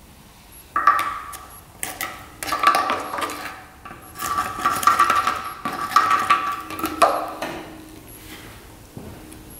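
Metal clinking and knocking, several sharp knocks over about six seconds, with a steady high tone sounding beneath them for most of that time.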